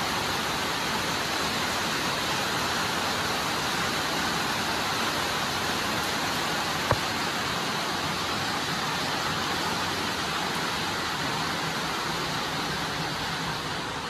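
Steady rain, a continuous even hiss that grows a little quieter near the end, with a single sharp click about seven seconds in.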